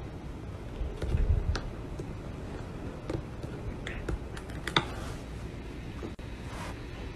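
A few scattered light clicks and taps of a laptop being handled and pressed on, the loudest a little before five seconds in, over low room noise.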